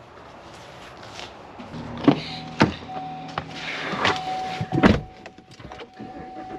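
A vehicle starting to run, its engine idling with a steady low hum, while a few heavy thumps like doors shutting sound. A steady high warning tone comes in partway through.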